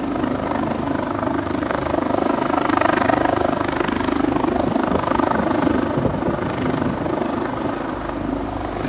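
Twin-turbine Leonardo AW139 rescue helicopter close by, its rotor noise a steady, loud beating drone.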